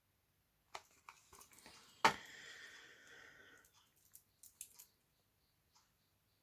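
Small clicks and knocks of a Victorinox Classic pocketknife being handled, with one sharp click about two seconds in followed by a short ring, and a few lighter clicks near the end.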